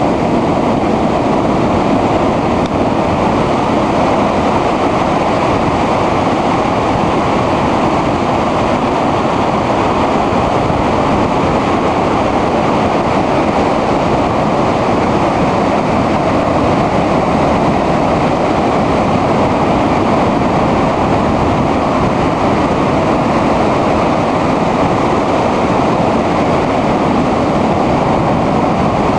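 Heavy storm surf breaking over rocks and a concrete pier: a loud, steady wash of noise with no break between the waves.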